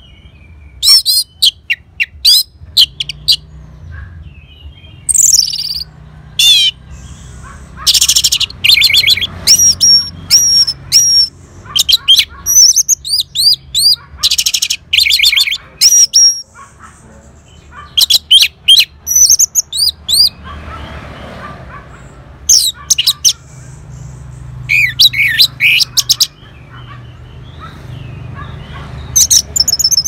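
Orange-headed thrush singing loudly in repeated bursts of varied, high whistled phrases and fast rattling trills, with short pauses between them.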